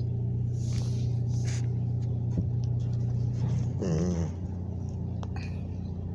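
Steady low engine hum that stops a little under four seconds in, overlapped by a short wavering whine from a dog.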